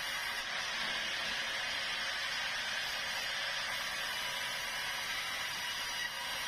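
Sawmill saw cutting through a large log: a steady, unbroken hiss with a faint whine.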